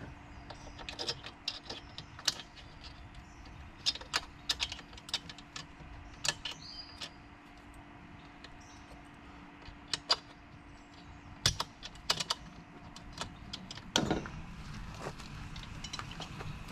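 Irregular clicks, clinks and knocks of parts being handled and fitted while a Gorilla Carts fishing cart is set up, with one louder knock near the end.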